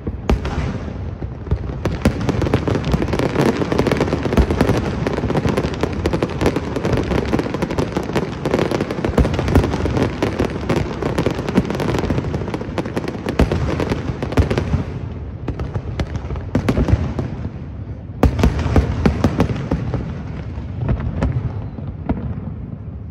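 Aerial fireworks display: a dense, continuous run of bangs and crackling. It thins briefly about two-thirds of the way through, then comes back as another flurry before dying down near the end.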